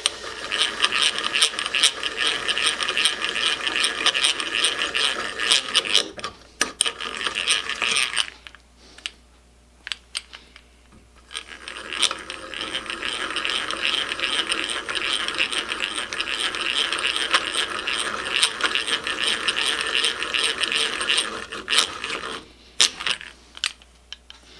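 Stanley Handyman eggbeater hand drill being cranked, its gears whirring with rapid clicking. It runs in two long spells with a lull of a few seconds between them and a few scattered clicks near the end, as the freshly reassembled drill is tried out.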